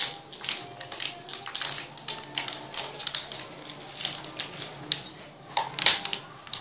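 Thin plastic water bottle crackling and crinkling in quick, irregular clicks as it is squeezed during chugging, with the loudest crackle near the end.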